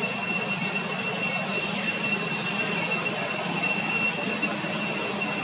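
Steady high-pitched drone of cicadas, holding one unchanging pitch with a fainter higher overtone, over a rough hiss.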